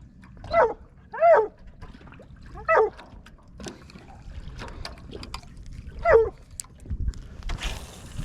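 A young dog giving four short, high, whiny barks, each rising and falling in pitch.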